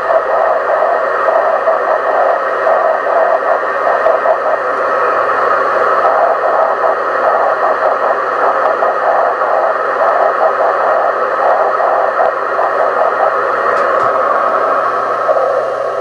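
Yaesu FT-817 receiver audio from a 10 GHz transverter: the Manchester 10 GHz beacon's tone, breaking up rapidly, over steady receiver hiss. It is a rain-scatter signal, reflected off a rain cloud, probably a thunderstorm to the south.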